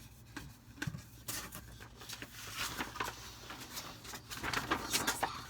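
Packaging being opened by hand: a dense run of crackling, rustling and tearing sounds, busiest from about a second in to near the end.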